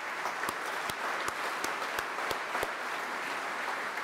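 Applause from a roomful of people clapping. One nearby pair of hands claps sharply above the rest, about three claps a second, until a little past halfway.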